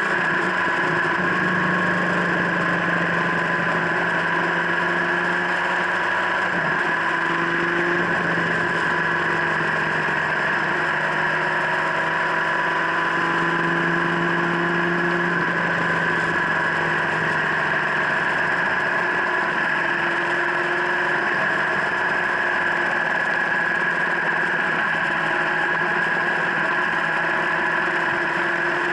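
BMW R1200GS LC's 1170 cc boxer-twin engine running at a steady cruise while the bike is ridden during its running-in, heard close up from a camera mounted on the engine guard. The pitch drifts gently up and down with no sharp revving.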